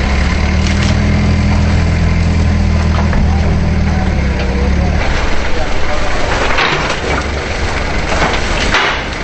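Forklift engine running with a steady low hum for about five seconds. After that the sound turns noisier, with a few short thumps and rustles as sacks of wood scraps are handled.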